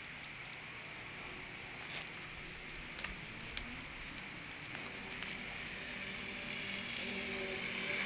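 Small clicks and taps of hand tools and fingers on a motorcycle handlebar lever being set and tightened, against quiet outdoor background with birds chirping; a vehicle noise starts to rise near the end.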